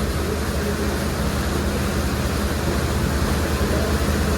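Steady drone of a river ferry's engine under a constant rush of wind and water noise, with no change in pitch or level.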